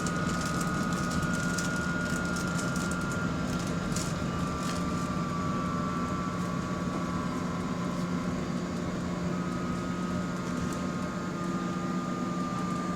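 An unidentified high whining tone inside a bus, stepping down in pitch a little at a time, over the bus's steady low drone.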